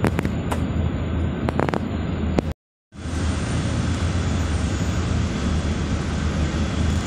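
Steady low rumble and hiss of a city bus in motion, heard from inside: engine and road noise, with a few light rattles in the first two seconds. The sound cuts out completely for a moment about two and a half seconds in, then the rumble picks up again.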